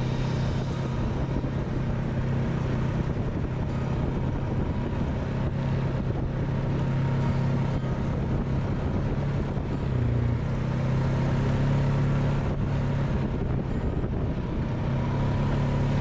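ATV engine running steadily while riding, with a brief drop in engine pitch about ten seconds in before it picks up again.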